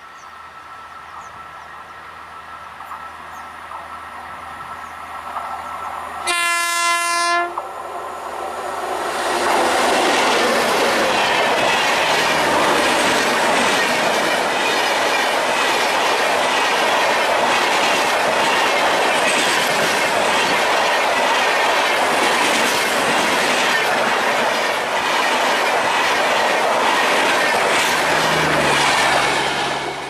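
WAP-7 electric locomotive's horn, one blast about a second long as the express approaches, then the Garib Rath Express passing close by: a loud, steady rush with wheels clattering on the rails.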